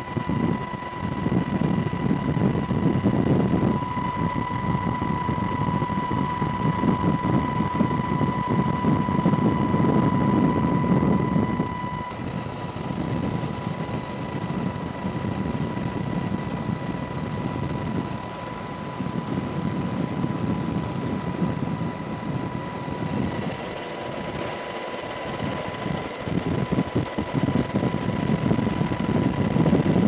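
Black Hawk helicopter in flight, heard from the open cabin door: steady rotor and engine noise with rushing air and a constant high whine. The sound shifts abruptly twice, dropping in level about twelve seconds in.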